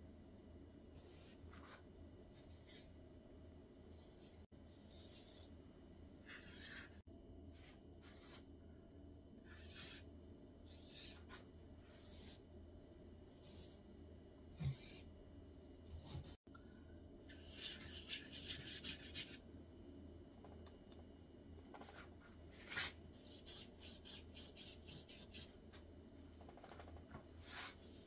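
Faint strokes of a paintbrush on paper: short separate brush strokes, at times in quick runs of rapid strokes, over a steady low hum. A soft low bump comes about halfway through.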